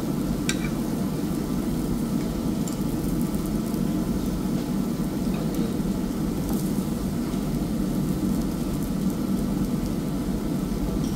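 Food sizzling on a Japanese BBQ grill, a steady frying hiss with faint scattered crackles over a low background hum.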